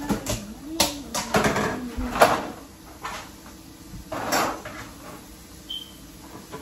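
Kitchen handling noise at a counter: a quick run of knocks and clicks as things are picked up and set down, with rustling, over the first two seconds or so, then a short burst of rustling about four seconds in.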